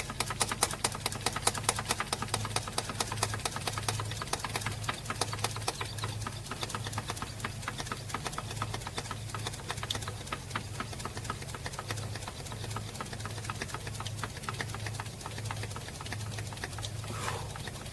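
Hand fuel primer pump on a Detroit DD15's fuel filter housing being worked steadily, a fast run of clicking strokes over a low hum. The pumping primes the fuel system after the filter change, until the primer gets tight.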